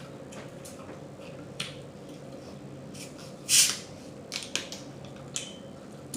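Pepsi being opened: a few light clicks, then a short, loud fizzing hiss of released carbonation about three and a half seconds in, followed by a few more clicks.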